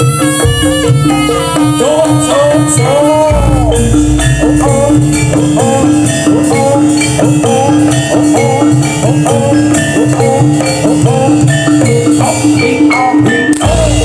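Loud live music for a barongan performance: drums and percussion under a wavering melody line, with a steady repeating note, and a deep bass coming in about three seconds in.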